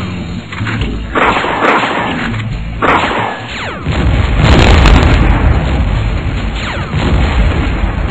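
Cartoon explosion and boom sound effects over a low rumble, with several big blasts in a row, the loudest about four and a half seconds in.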